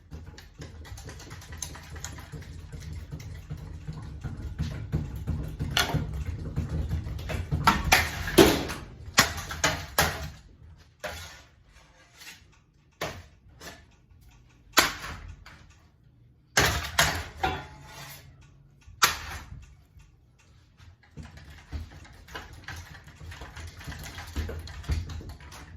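Ceiling fan with a low motor hum that dies away after about ten seconds, with irregular knocks and clattering rattles throughout. The loudest knocks fall around eight to ten seconds in and again near fifteen and seventeen seconds.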